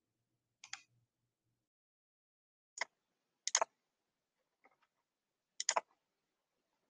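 Scattered sharp clicks at a computer, about five spread over several seconds with near silence between them.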